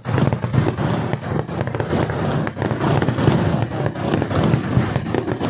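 Daytime temple-festival fireworks (vedikettu): a dense, unbroken barrage of firecracker bangs, many to the second.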